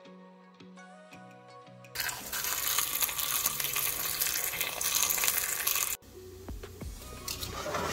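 Gentle background music with a steady tune. About two seconds in, a loud rushing hiss cuts in and stops abruptly four seconds later. A quieter hiss with scattered clinks and clicks follows under the music.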